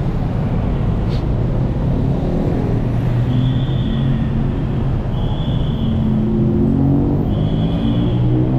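City road traffic: motor engines rumbling, with one engine rising in pitch as a vehicle accelerates near the end. Three short, high, steady tones sound about two seconds apart.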